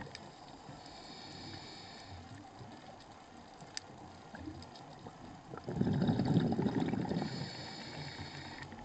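A scuba diver breathing through a regulator underwater. A faint hissing inhale comes about a second in, then a louder burble of exhaled bubbles from about six to seven seconds, followed by another hissing inhale.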